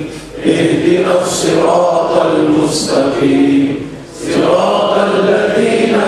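A man chanting melodic Arabic recitation into a microphone, with long held notes. He breaks off briefly for breath about a third of a second in and again about four seconds in.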